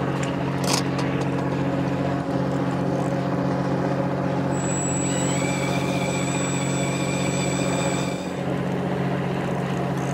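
Steady low hum of a fishing boat's engine running. About halfway through, a thin high whine comes in for a few seconds, then stops.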